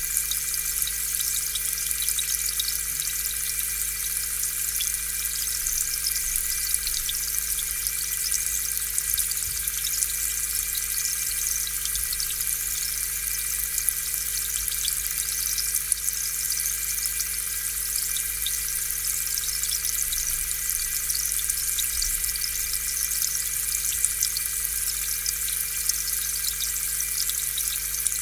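Aquarium air pump running with a steady electric hum and whine, while its air bubbles fizz and burble up through the tank water.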